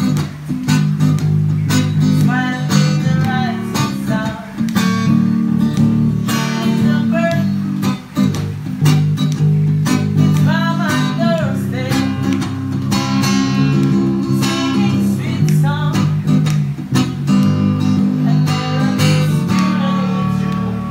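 Lakewood acoustic guitar and Ibanez SDGR electric bass playing together, the acoustic guitar strummed and picked over a steady bass line.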